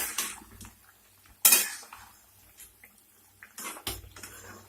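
Metal cookware clanking: a sharp clank right at the start and another about a second and a half in, each ringing briefly, then softer knocks near the end.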